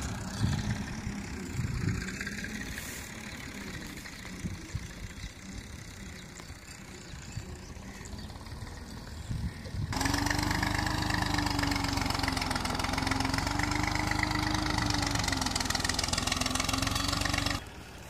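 Tractor engine running as it tills between cotton rows, fainter and fading at first. About ten seconds in it becomes much louder and nearer, its pitch wavering slightly up and down, and it cuts off suddenly near the end.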